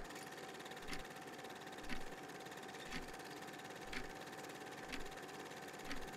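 Record-style surface noise: a steady hiss and a faint steady hum, with a soft click about once a second.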